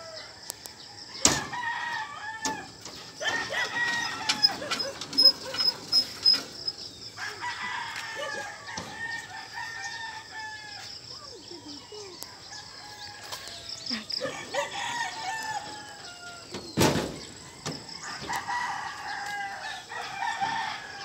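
Several roosters crowing again and again, their crows often overlapping, with some clucking of chickens. Two sharp knocks cut in, one about a second in and a heavier one late on.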